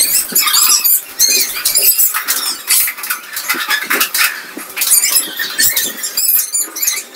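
Busy, high-pitched chirping and squeaking, many short wavering calls overlapping, with a few light clicks among them.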